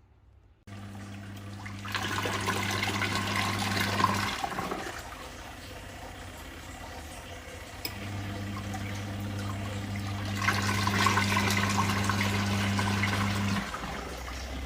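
Foldable portable mini washing machine's motor humming as it churns water. It runs for a few seconds, stops briefly, then runs again for about six seconds, with water swishing loudest near the end of each run.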